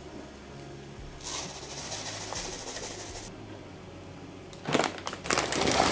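Kitchen cupboard handling: a rustle as something is taken down from a shelf, which stops abruptly, then a knock about five seconds in followed by a rapid rattling clatter.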